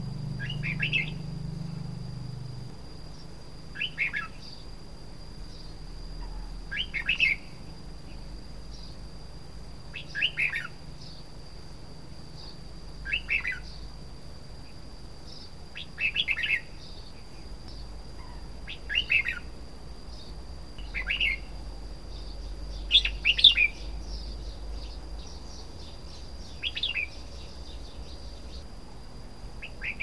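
Red-whiskered bulbul singing short, bright, warbled phrases, one about every three seconds. The loudest phrase comes a little past the middle.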